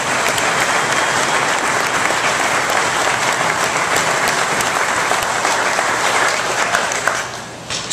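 Audience applauding, steady clapping that dies away in the last second.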